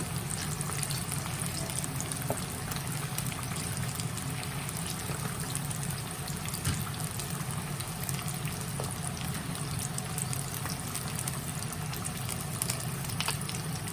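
Fish frying in hot oil: a steady sizzle with many small scattered crackles and pops.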